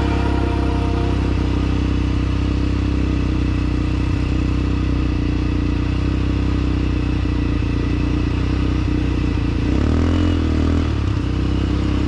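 ATV engine running steadily, with a brief wavering rise and fall in its note about ten seconds in.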